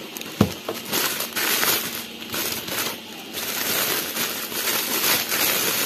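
Plastic packaging bags crinkling and rustling as they are handled and opened, with one sharp click about half a second in.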